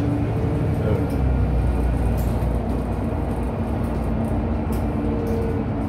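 Güleryüz Cobra GD-272LF city bus driving along, heard from inside the cabin at the front: a steady low engine and drivetrain rumble with a droning hum over road noise, and a few faint rattles.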